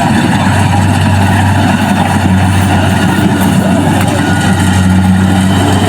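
Kubota DC-70 Plus combine harvester's diesel engine and threshing machinery running steadily, a constant loud drone while harvesting rice.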